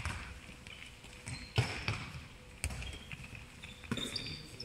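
Handballs thudding on the hall floor and into players' hands, a few separate knocks, with short high squeaks of sports shoes on the court, most near the end.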